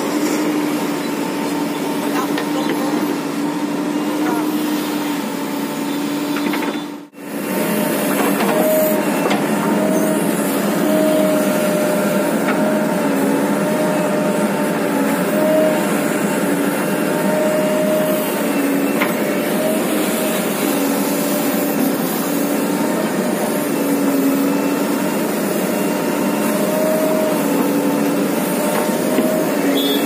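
JCB 3DX backhoe loader's diesel engine running steadily under hydraulic load while digging, its drone wavering a little in pitch. The sound cuts out for a moment about seven seconds in, then returns.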